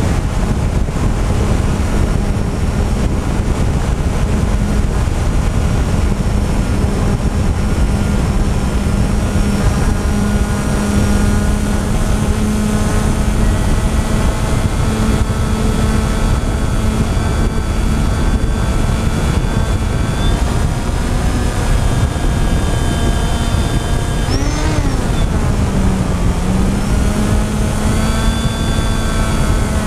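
FPV drone's electric motors and propellers whining steadily over heavy wind rumble on the onboard microphone, with a quick rise and fall in pitch about 24 seconds in.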